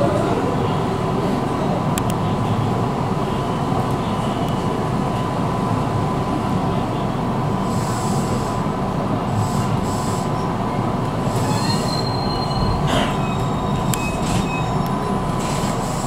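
Electric commuter train running out of a station, heard from inside the front car: a steady rumble of wheels on rail with a few sharp clicks over rail joints and points. There is a brief high wheel squeal about twelve seconds in.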